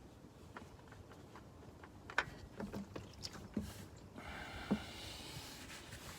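A few sharp knocks and clicks as the oil filter is worked loose and popped off. About four seconds in, a steady stream of oil starts pouring from the filter mount into the drain pan.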